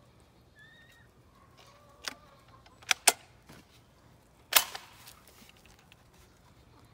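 A few sharp metallic clicks and clacks from a Tokarev TAR-12P 12-gauge semi-automatic shotgun being handled as a shell is port-loaded through the ejection port and the action closed, the loudest a close pair about three seconds in and another about four and a half seconds in.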